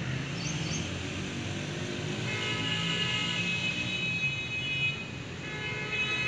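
Steady low rumble of background traffic, with a horn sounding one held, flat note for about two seconds, starting about two seconds in, and again near the end.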